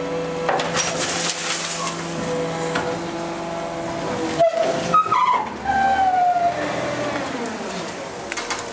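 MacDonald Johnston side-loader garbage truck's packer running with a steady mechanical hum. About halfway through it gives two sharp knocks, and the steel packer blade then squeals in falling tones as it scrapes along the body while sweeping green waste.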